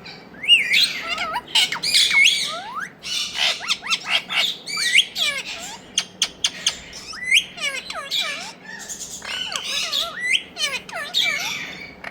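Indian ringneck parakeet calls: a continuous run of short, shrill squawks and chirps that swoop quickly up and down in pitch.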